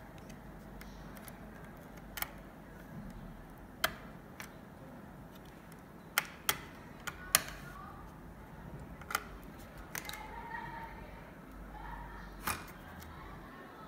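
Plastic snap clips of an Acer Aspire E5-573G laptop's case clicking loose one by one as the casing is pried apart with a plastic card: about seven sharp clicks, irregularly spaced.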